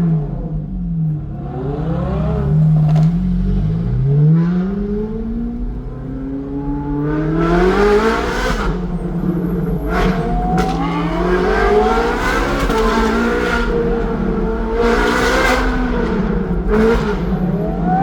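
Ferrari 458's naturally aspirated 4.5-litre V8 through an aftermarket Secret Weapon exhaust, revving hard through the gears. The engine note climbs and drops again and again, with several sharp cracks along the way.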